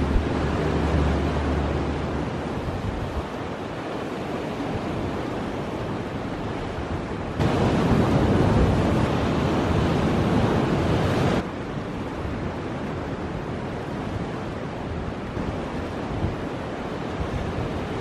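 Ocean surf breaking and washing over a rocky shore: a steady rush, louder for about four seconds near the middle.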